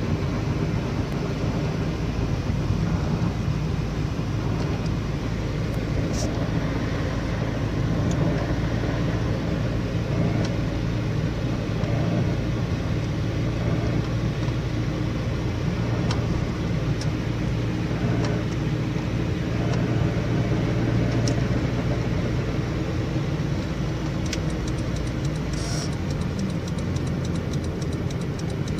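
Nissan Sentra driving, a steady low rumble of engine and road noise, with a few sharp ticks and a short run of rapid clicks near the end.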